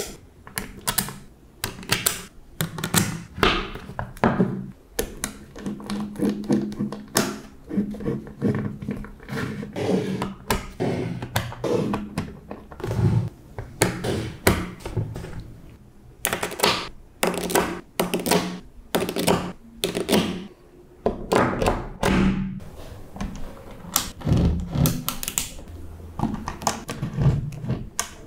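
Small magnetic balls clicking as they snap onto one another, an irregular run of sharp clicks, roughly one to three a second.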